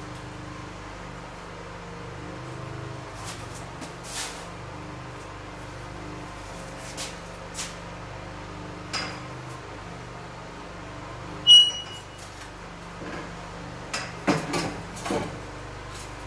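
Scattered knocks and clinks of metal tools and exhaust parts being handled, over a steady low hum. One sharp clink rings out about two-thirds of the way through, and a quick cluster of clatters comes near the end.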